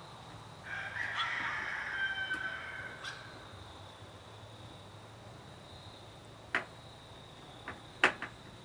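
A rooster crows once, for about two and a half seconds, starting about half a second in, over a steady high drone of insects. Later a few sharp clicks come from screwdriver work on the metal wall pack light; the loudest is near the end.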